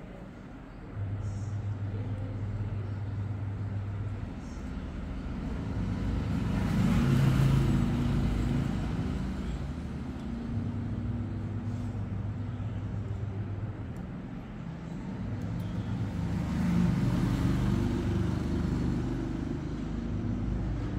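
Motor-vehicle traffic in the background: a steady low engine hum, with vehicles swelling past and fading away twice, about a third of the way in and again near the end.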